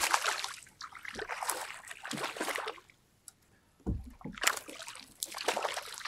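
Water splashing and sloshing around a kayak in short bursts as a hooked smallmouth bass is fought, with a dull thump about four seconds in.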